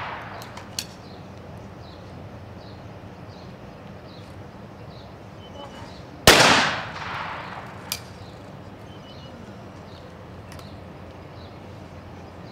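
12-gauge trap shotgun firing outdoors. The echo of a shot fired just before fades out at first. About six seconds in comes a single loud shot with a long ringing tail as it carries across the open range, and a short sharp click follows about a second and a half later.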